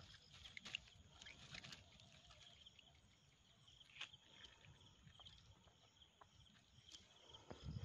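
Near silence: a faint steady high chirring of insects, with small scattered clicks and rustles of hands handling a fish and fishing line in the grass, and a soft thump near the end.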